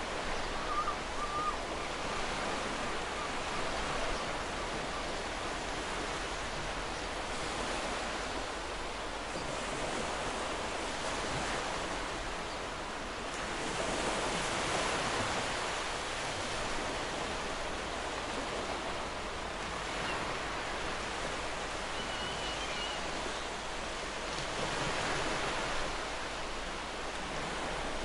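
Ocean waves breaking and washing up on the shore, a continuous surf hiss that swells and ebbs every several seconds. A couple of brief faint bird calls sound over it, near the start and about two-thirds of the way through.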